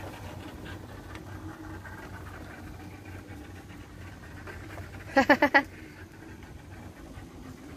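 An animal calls four times in rapid succession about five seconds in, over a steady low hum.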